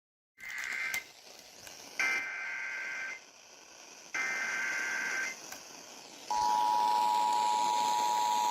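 Emergency Alert System SAME header: three short bursts of buzzing two-tone data, then the steady two-tone EAS attention signal starts about six seconds in, over a faint radio hiss. It announces an emergency alert, here a severe thunderstorm warning.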